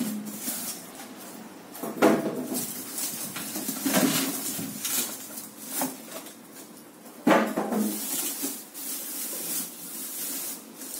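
Unpacking a computer case: polystyrene foam end caps pulled off and the plastic wrap rustling, with a few sharper knocks and scrapes as the case is handled, the loudest about two seconds in and again after seven seconds.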